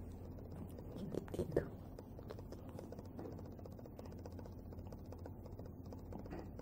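A newborn baby making a few small coos and grunts, the loudest about a second and a half in, over a low steady hum and faint clicks.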